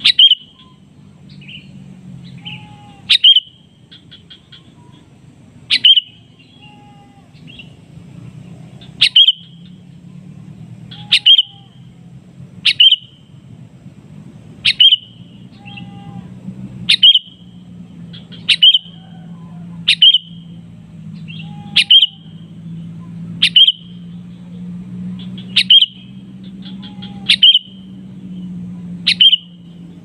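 Sooty-headed bulbul giving short, loud, sharp calls about every two seconds, fifteen in all: its challenge call, used to lure and answer rival bulbuls. A faint low steady hum lies underneath.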